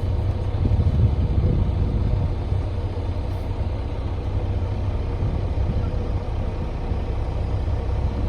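Canal tour boat's engine running steadily, a low hum, a little louder in the first two seconds.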